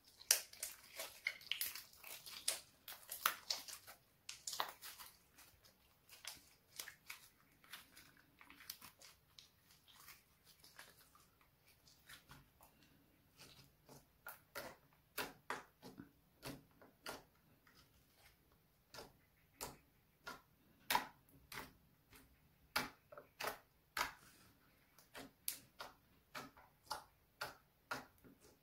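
Pink slime being squeezed, folded and poked by hand, making small wet clicks and pops. They come thick and fast for the first few seconds, then as separate pops a few times a second.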